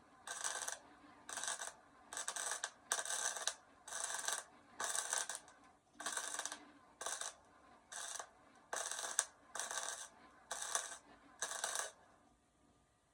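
Hand tool worked back and forth over metal in steady strokes, a rasping scrape about once a second, stopping shortly before the end.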